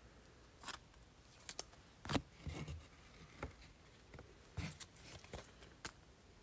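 Faint, scattered rustles and light clicks of trading cards being handled and slid into plastic card sleeves.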